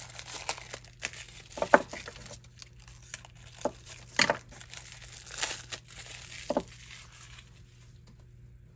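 Clear plastic shrink-wrap crinkling and tearing as it is cut and pulled off small jewelry pliers, with a few sharp clicks. It dies down about seven seconds in.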